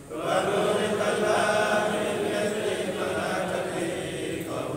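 Congregation of men chanting together in unison, a religious chant of long held lines that starts suddenly just after the first moment.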